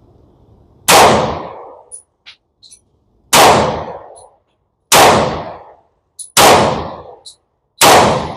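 Five shots from an FN 510 10mm Auto pistol firing CCI Blazer 180-grain rounds, about one and a half seconds apart, each a sharp crack with a short echoing tail. Faint short clinks sound between the shots.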